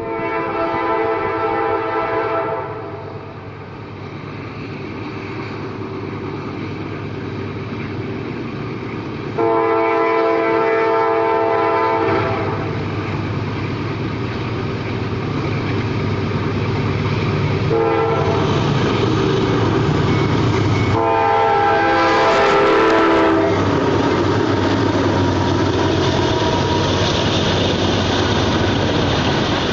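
Diesel freight locomotive's K5LA five-chime air horn blowing long, long, short, long, the standard grade-crossing signal, as the CSX train approaches. The locomotives then rumble past, and the empty coal hopper cars roll by with steady wheel clatter on the rails.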